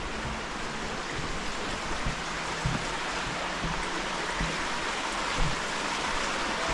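Steady rush of running water in a slate mine, growing louder toward the end, with a few soft knocks underneath.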